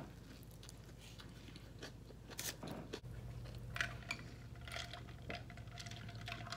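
A person biting and chewing food close to the microphone, heard as a string of short, irregular clicks and smacks.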